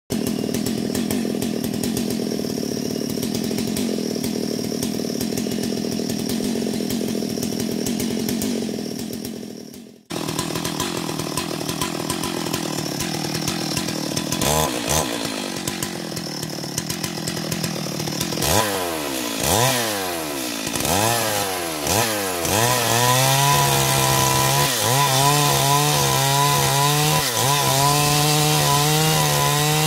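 Stihl MS 382 two-stroke chainsaw running. It is revved up and down several times, then held at a steady speed for the last several seconds while cutting wood. The sound breaks off for a moment about ten seconds in.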